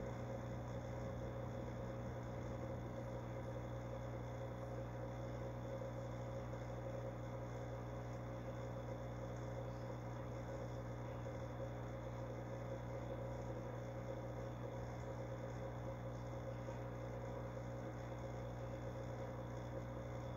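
Fish-tank pump running with a steady hum and a faint even hiss.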